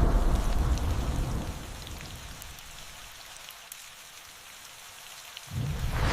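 Steady rain falling with scattered drop ticks, as a low rumble of thunder dies away over the first couple of seconds. Near the end a new rumble of thunder sets in suddenly and grows loud.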